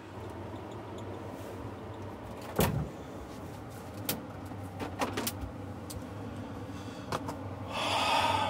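Steady low room hum with a few scattered knocks and bumps from someone moving about out of sight, the loudest about two and a half seconds in. Near the end a louder rustling comes as the person steps back close to the microphone.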